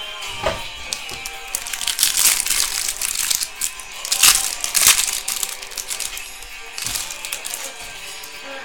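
Crinkling and crackling of trading-card packaging and cards being handled, loudest about two seconds in and again about four to five seconds in, over steady background music.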